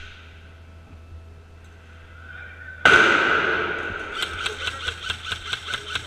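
A sudden loud bang about three seconds in that echoes through a large empty building and fades over about a second, followed by a run of sharp, evenly spaced cracks, about four a second, typical of airsoft shots.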